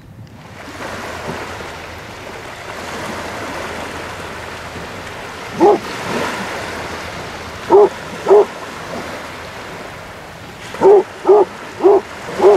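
Small waves washing onto the beach with a steady rush, and a dog barking in the surf: once, then twice, then four quick barks near the end.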